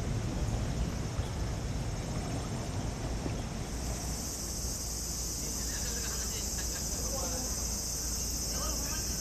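Steady high-pitched drone of cicadas that starts about four seconds in and keeps on, over a low outdoor rumble. Faint distant voices.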